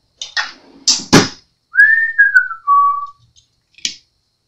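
A few sharp clicks and clatters of hand tools being handled, then a man whistling a short falling phrase of three notes, and one more click near the end.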